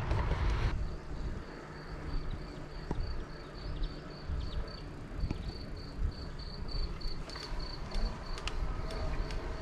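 A cricket chirping in an even pulsed rhythm, about four chirps a second, starting about a second in and stopping shortly before the end. Underneath runs a steady low rumble of wind and tyres from the moving bicycle.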